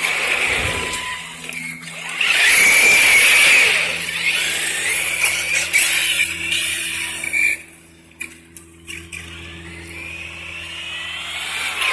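Brushless electric motor of a large RC truck whining as it accelerates and slides on wet ground. The whine rises and falls, is loudest about two to four seconds in, and drops away around eight seconds in before building again.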